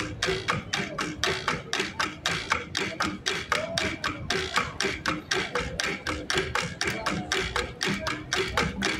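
Cordillera percussion ensemble of flat gongs (gangsa) and drums playing a steady, quick beat of about four to five strokes a second, with short pitched gong tones over the hits.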